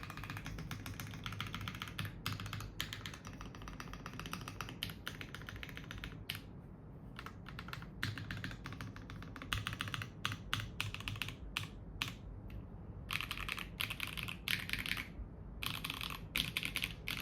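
Mechanical keyboard with Outemu Lotus switches on a polypropylene plate being typed on quickly: a dense run of keystroke clicks that breaks off briefly about halfway and again near the end.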